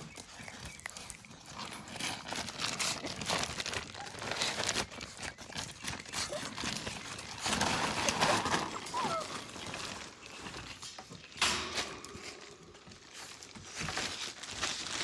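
Australian cattle dog puppies playing, scuffling and rustling with irregular scratches and knocks, and a brief high squeak about nine seconds in.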